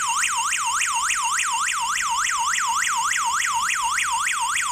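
PG103 wireless alarm host sounding its built-in alarm, set off by the door sensor's magnet being pulled away. It is a loud electronic siren tone that sweeps down and back up in a fast, even whoop, about four times a second.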